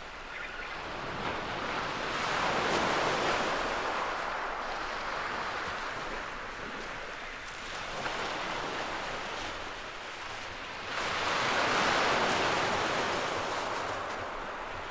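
Small waves breaking and washing up a shingle beach: a steady hiss that swells twice, about two to three seconds in and again about twelve seconds in.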